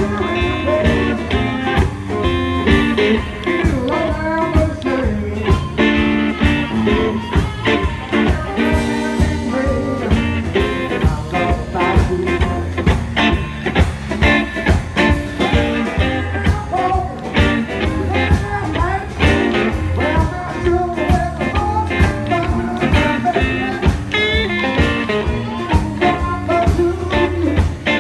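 A blues band playing with guitar and drums to a steady beat, with singing.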